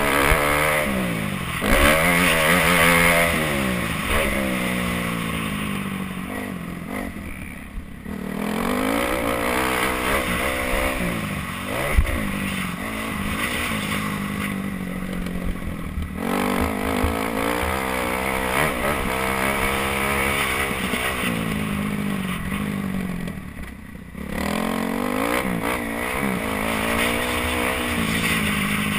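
Kawasaki KX250F's four-stroke single-cylinder engine revving up and down with the throttle and gear changes as it is ridden round a motocross track, the revs dropping right off and picking up again three times. A single sharp knock about twelve seconds in.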